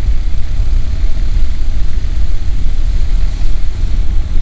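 Honda NC700X motorcycle riding at road speed, heard from the rider's camera: a steady, loud low rumble of wind buffeting the microphone mixed with the parallel-twin engine running.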